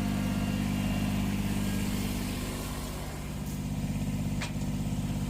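Engine idling steadily, with a slight dip in level about three seconds in.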